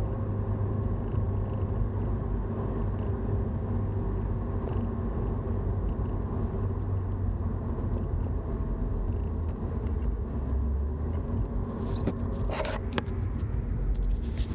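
Car running with a steady low rumble and hum: the unexplained noise the owner is asking about. A few short clicks or knocks come about twelve to thirteen seconds in.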